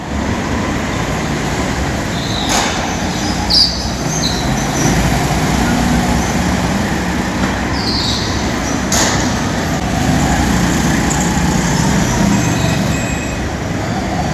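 Go-kart engines running on an indoor track: a steady, loud drone, with a couple of short high squeals and a few sharp knocks.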